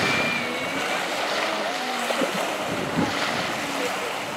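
Wind rushing over the microphone and choppy water, with a jet ski running out on the lake.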